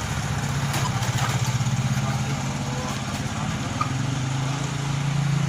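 An engine idling steadily with an even throb, its pitch shifting slightly a little over halfway through.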